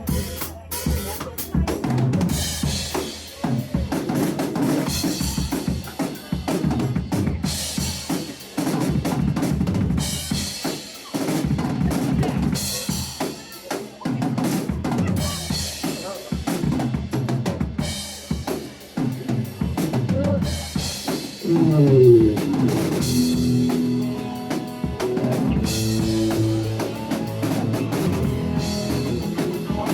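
Instrumental stretch of a rock song with the drum kit to the fore, bass drum, snare and rimshots keeping a steady beat under the band, with a falling pitch slide about two-thirds of the way through.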